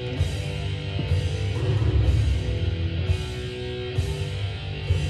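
Background rock music led by guitar, with a steady beat about once a second.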